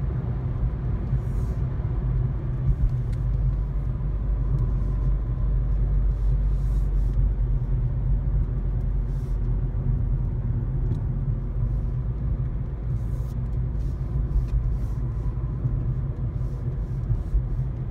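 Car driving at steady speed, heard from inside the cabin: a continuous low rumble of engine and tyres on the road.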